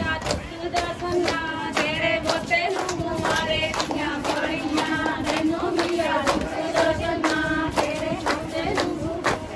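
A group of women singing a folk song together, with steady rhythmic hand clapping of about two to three claps a second.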